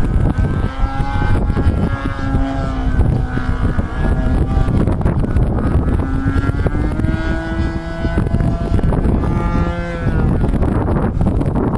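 Model aircraft engine droning overhead, its pitch rising and falling as the plane passes and changes throttle, over heavy wind buffeting on the microphone.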